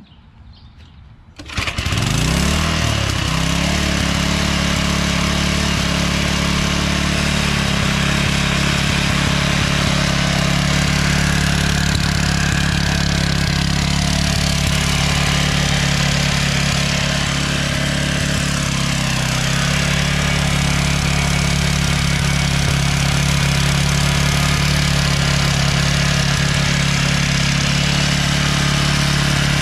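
The Toro edger's 2 hp Suzuki four-stroke engine, fitted with an adapted Briggs & Stratton plastic carburetor, starts up about a second and a half in. It revs up briefly, then runs steadily.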